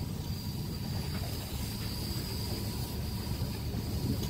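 Faint steady hiss of air fed from a small aquarium air pump into a Stuart No. 9 model steam engine, with a faint high whine, over a low steady rumble. The engine is short of airflow to run properly.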